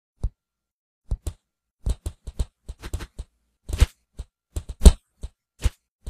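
Cartoon fight sound effects: an irregular flurry of short, sharp punch and kick hits with silence between them. The two loudest land about two thirds of the way through.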